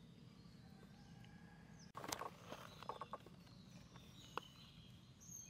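Faint rustling and crackling of dry leaves and fruit scraps on the forest floor as macaques move and handle food, with a few sharp clicks, starting about two seconds in over a quiet outdoor hiss. A few faint high bird chirps are mixed in.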